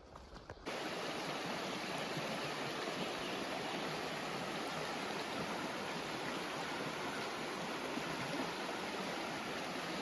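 Steady rush of a flowing creek, coming in suddenly under a second in.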